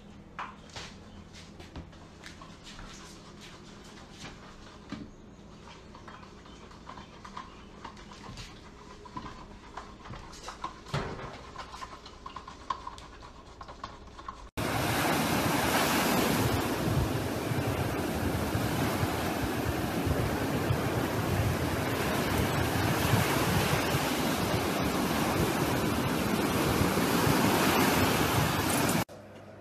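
For the first half, faint kitchen room sound with scattered small clicks and taps. Then a sudden cut to loud, steady noise of ocean surf breaking on a beach, with wind on the microphone.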